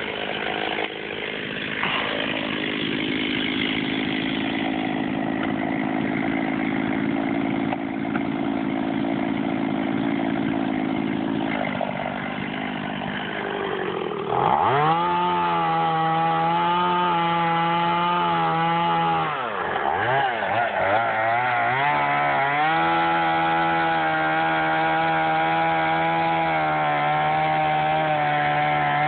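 Chainsaw cutting a tree, the engine held at a lower pitch for the first twelve seconds or so. About halfway through it revs up high, drops back briefly, then revs high again.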